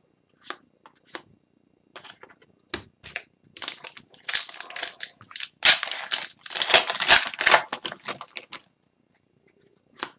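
Foil wrapper of a hockey card pack crinkling and tearing as the pack is opened, with light clicks of cards being handled. The crinkling comes in two loud spells through the middle.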